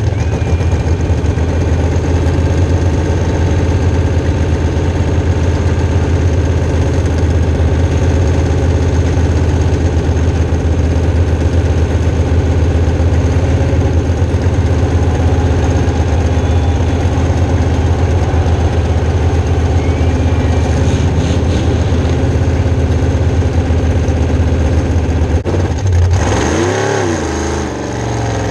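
Engine of a burnout vehicle held at a steady high pitch for over twenty seconds, then the revs drop and swing down and back up near the end.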